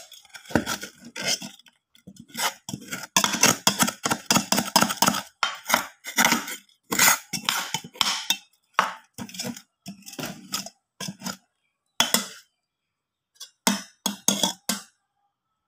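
Metal spoon scraping and clinking against the inside of a pot, digging out burnt food stuck to the bottom. A quick run of strokes thins out to scattered scrapes, with a brief pause and a last few scrapes near the end.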